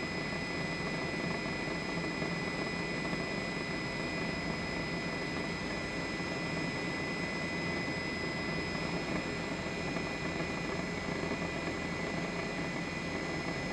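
Steady noise of the news helicopter the aerial footage is shot from: an even rush with constant high-pitched whines that never change.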